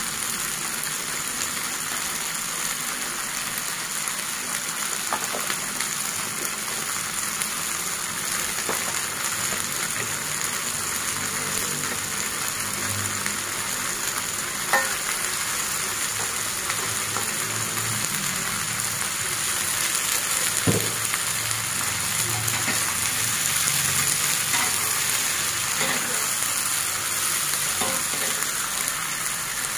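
Tomatoes and chillies frying in hot oil in a wok: a steady sizzle with a few sharp clicks, and a metal spatula stirring the pan near the end.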